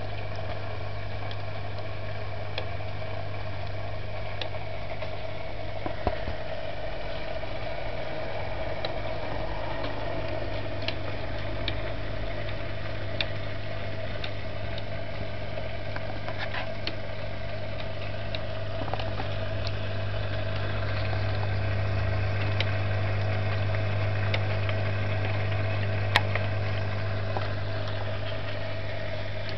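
Steady low hum of an aquarium pump, with scattered faint clicks and one sharper click near the end.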